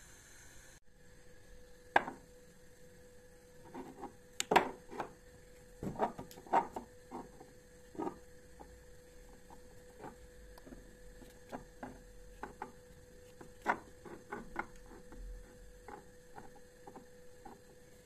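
Glass spice jars with plastic lids being handled on a cabinet shelf: a run of light clinks and taps, irregular and scattered, over a faint steady hum.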